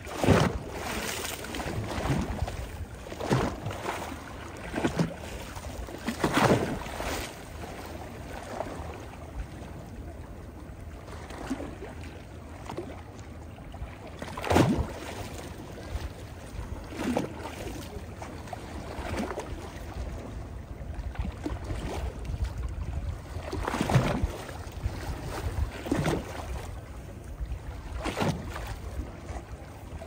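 Small sea waves lapping and splashing at a stony shoreline, a soft surge every one to three seconds over a low steady rumble.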